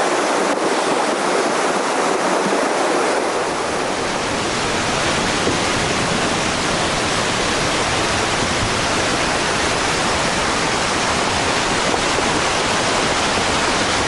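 Mountain stream in muddy flood, rushing and churning over rocks with a steady roar of water. It turns deeper from about four seconds in.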